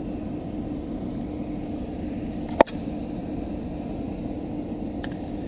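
Steady rushing of water pouring through a river weir, with a low hum running through it. A single sharp click about halfway through.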